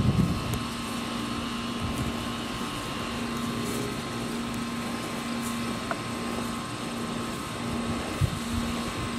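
A motor drones steadily in the background, with a low steady hum that drops out for moments a few times.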